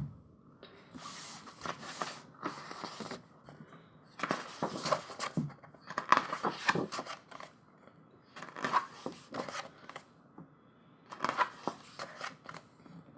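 Paper rustling and page flaps from a thick photobook being handled and leafed through, in irregular short bursts with brief pauses between.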